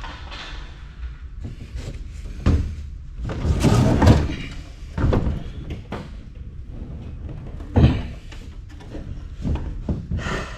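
Knocks, thuds and bangs of heavy metal generators and a pallet being moved and loaded into a van, over a low steady rumble. The loudest thuds come about four seconds in and again near eight seconds.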